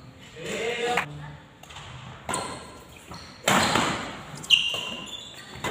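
Badminton rackets striking a shuttlecock during a rally: four sharp hits about a second apart, the last two loudest, each echoing in a large hall.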